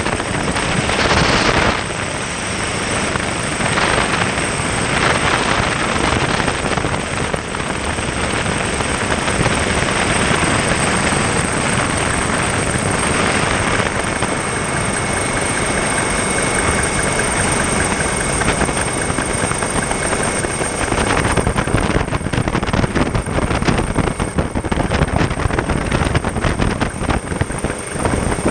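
Steady noise of a Coast Guard aircraft's engines and rushing air, heard from on board, growing gustier and more uneven in the last third.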